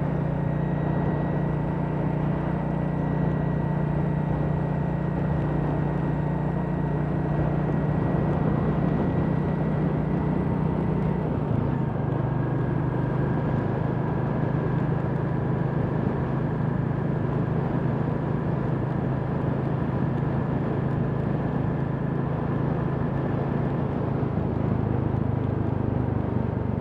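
Royal Enfield Classic 350's single-cylinder engine running steadily under way, heard from the rider's seat over road and wind noise. Its note steps down in pitch about eleven seconds in and then holds steady.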